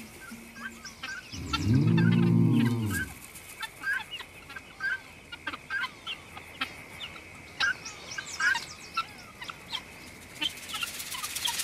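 Guineafowl giving repeated short clucking alarm calls, a few each second, against a faint steady high hum. A low swell of music rises and falls between about one and three seconds in, and a rushing noise builds near the end.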